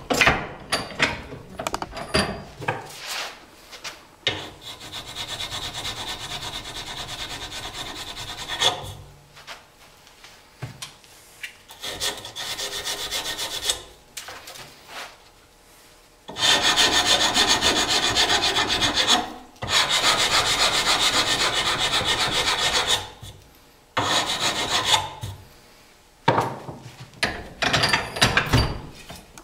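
Rasping on the wooden tenon of a take-down longbow as more wood is taken off towards the top: several long spells of scraping a few seconds each, with light knocks between.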